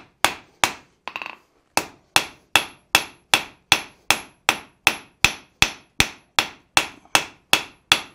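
Hand hammer striking a hot bar of 1075 steel on the anvil, a steady run of sharp blows with a short ring after each, about two and a half a second, with a brief pause about a second in. The smith is drawing out one edge of the bar into a scarf for forge-welding it in as an axe's cutting edge.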